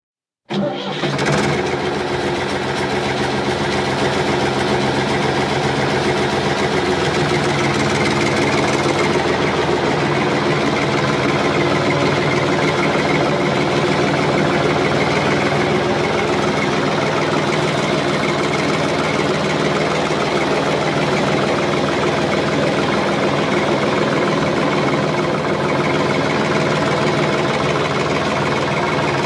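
An engine running steadily at constant speed, cutting in suddenly about half a second in after silence and holding an unchanging hum.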